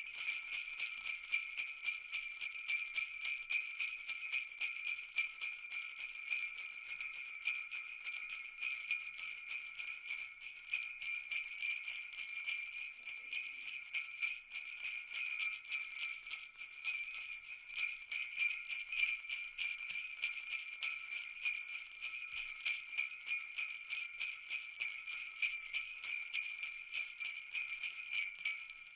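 Sleigh bells jingling continuously in a fast, even shaking rhythm, bright and high-pitched.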